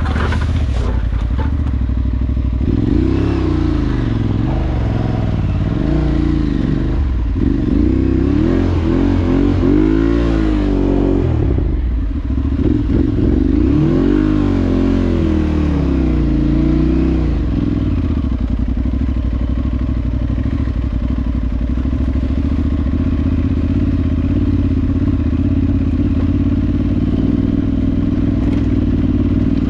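Parallel-twin adventure motorcycle engine riding off-road, its pitch rising and falling again and again with the throttle for the first half, then holding a steadier note, with some clatter.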